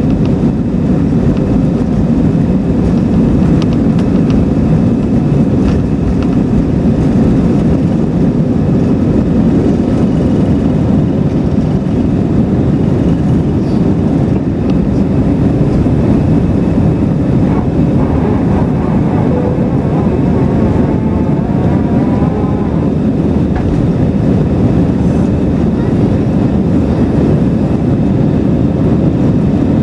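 Airbus A320's engines at takeoff thrust with rushing airflow, heard inside the cabin as the airliner lifts off and climbs: a loud, steady, deep noise.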